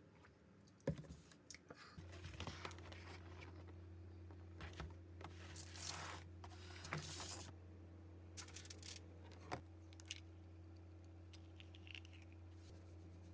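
Quiet kitchen handling sounds: a sharp knock about a second in, then crinkling and rustling of a plastic food container and scattered light clicks, over a steady low hum that starts about two seconds in.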